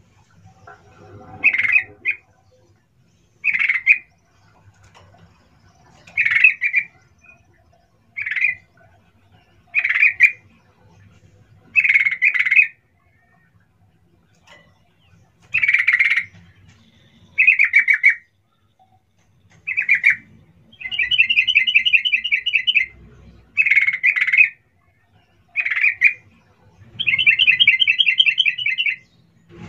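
Yellow-vented bulbul (trucukan) calling: short sharp 'cuk cuk' notes repeated about every two seconds. In the second half come two longer, rapid trilled phrases of about two seconds each.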